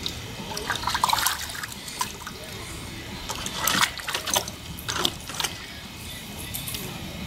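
Boston Terrier splashing and lapping at the water of a plastic kiddie pool with its muzzle, in several short irregular bursts, with water dripping.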